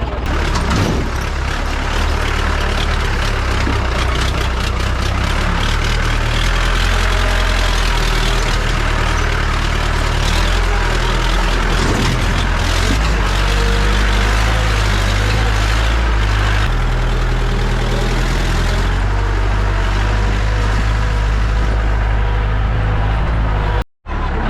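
Jeep engine running, a loud steady low drone with noise over it, the low tones shifting as it goes; the sound cuts out for a moment near the end.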